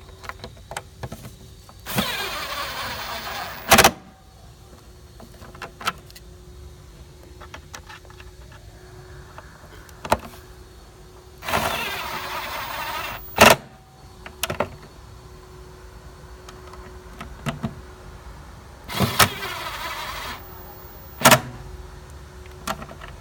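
A cordless screwdriver driving Torx T25 screws home runs in three short bursts of about two seconds each. Each burst ends in a loud sharp click, with smaller clicks and knocks of the screws and plastic cover in between.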